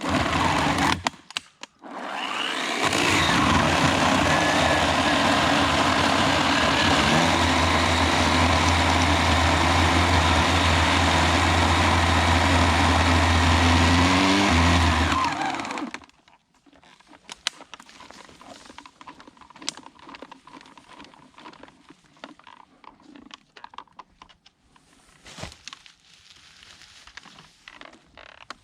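Electric chainsaw running steadily for about thirteen seconds and then cutting off, followed by quieter scattered cracks and rustles.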